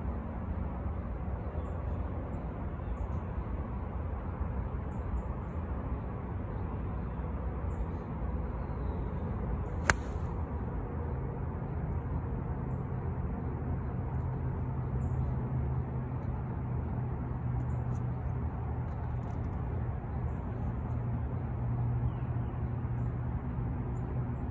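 An 8-iron striking a golf ball: one sharp click about ten seconds in. Under it, a steady low outdoor rumble with a low hum joining after the shot, and faint high bird chirps now and then.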